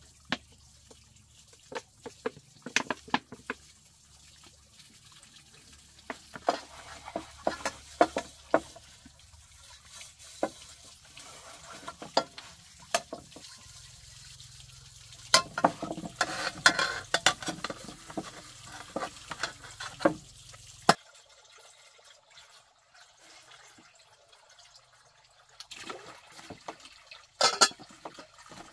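Thin stream of water from a pipe pouring into a full plastic basin, with splashing and repeated sharp knocks and clinks as a metal cooking pot is handled and filled.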